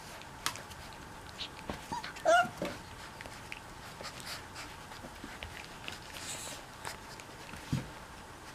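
Four-week-old mastiff puppies play-fighting: one gives a short high yelp about two seconds in, with scattered soft clicks and scuffles from paws and bodies on the blankets, and a low thump near the end.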